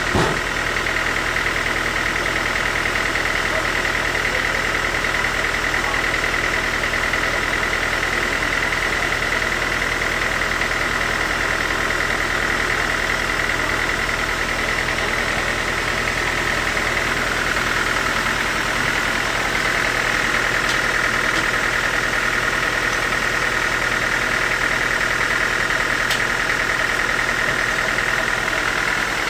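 Sawmill machinery running steadily: a constant high whine over a low hum, the whine dropping slightly in pitch about two-thirds of the way through. A brief knock sounds at the very start.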